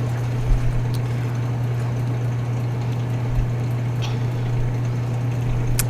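Caramel sauce simmering in a pan with a soft hiss, over a steady low hum, with a few light taps.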